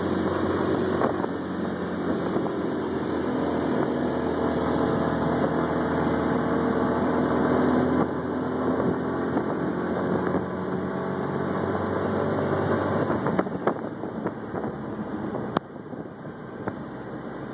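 Small engine of a three-wheeled scooter car running as it drives along, with wind on the microphone; the sound gets quieter near the end.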